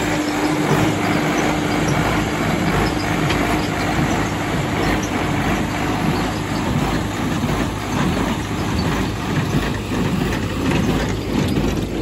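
Preet 6049 tractor driving a Massey Ferguson 1840 small square baler at work: the tractor's engine runs under the dense clatter of the baler. A steady hum carries through roughly the first six seconds.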